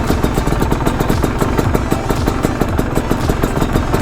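Honda CRM250R's single-cylinder two-stroke engine idling, a fast, even train of firing pulses. The owner judges the mixture too lean.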